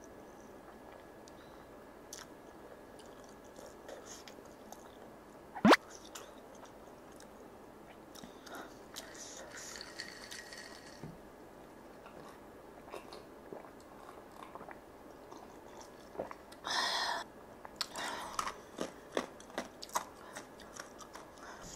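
Close-miked mukbang eating sounds: wet chewing of spicy grilled chicken and noodles, with soft crunches and smacks. About six seconds in there is one short, very loud rising squeak. In the second half, drinking from a glass of iced drink gives a breathy rush and a run of sharp clicks.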